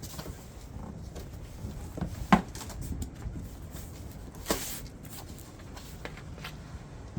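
Packaging being handled and unpacked: scattered rustling and small knocks, with a sharp knock a little over two seconds in and another about halfway through.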